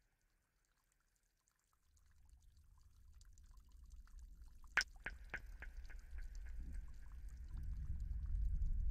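A water drop plinks once, sharply, about halfway through, followed by a quick run of fainter, fading repeats, over a low rumble that swells up from near silence.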